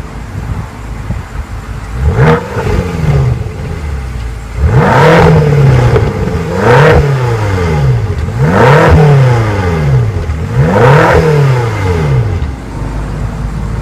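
2015 BMW M6 Gran Coupe's 4.4-litre twin-turbo V8 revved five times at a standstill: each blip rises and falls in pitch, with the first one short and the other four fuller, and the engine idles between them and after the last one.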